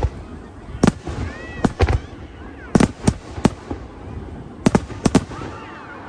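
Aerial fireworks shells bursting in quick, irregular volleys, about ten sharp bangs in all.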